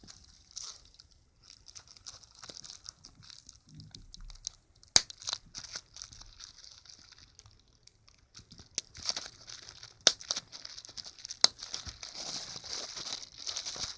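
Plastic bubble wrap being crumpled and squeezed, crinkling steadily with scattered small clicks. Bubbles burst with three loud sharp pops, about five, ten and eleven and a half seconds in.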